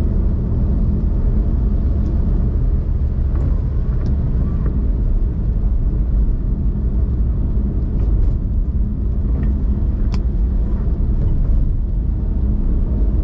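Car driving along a road: a steady low rumble of engine and tyre noise, with a few faint ticks.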